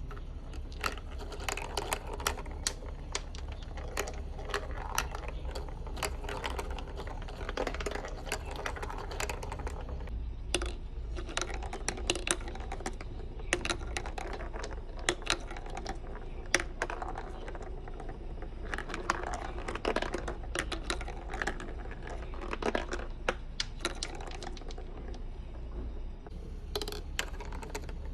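Marbles rolling and clacking along a toy marble run track: a dense, irregular stream of small hard clicks that thins out near the end, over a steady low hum.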